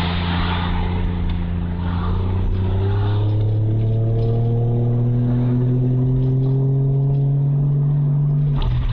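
Toyota Chaser JZX100's 1JZ straight-six heard from inside the cabin. It holds steady revs, then from about two seconds in the revs climb slowly under light throttle. Near the end the throttle is lifted, the revs fall sharply and a sharp afterfire pop comes from the exhaust.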